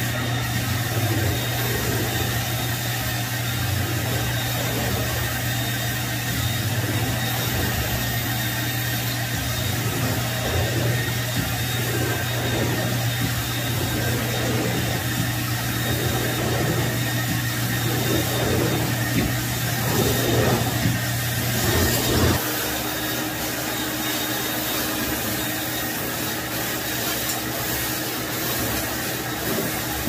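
Portable carpet extractor running steadily, its vacuum motor sucking through a stainless-steel floor wand that is pushed and pulled across the carpet in repeated strokes. The motor sound changes abruptly about two-thirds of the way through.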